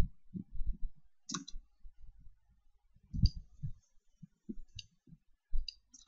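About five sharp clicks from a computer mouse and keyboard, spaced a second or so apart, with soft low thumps in between.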